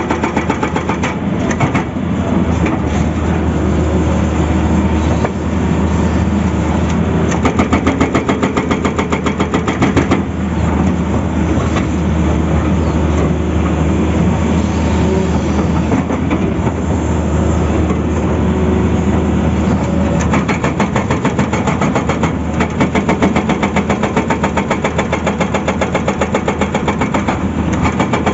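Hydraulic rock breaker on a Tata Hitachi excavator hammering rapidly into rock, a fast steady pounding over the excavator's diesel engine running under load.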